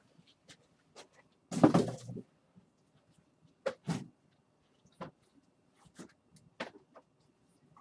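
Rummaging and handling noises: a brief scraping rustle a little under two seconds in, then scattered light knocks and clicks as objects are moved about.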